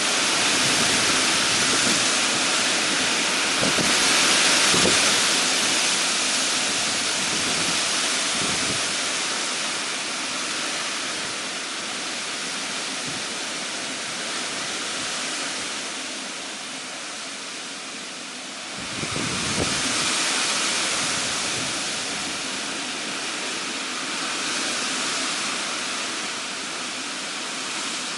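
Summer storm: heavy rain hissing with wind, swelling and easing, with two louder gusts about five and twenty seconds in.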